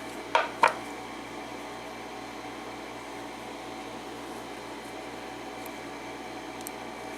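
Two quick clicks about half a second apart, as the parts of the disassembled padlock are handled, then a steady background hum.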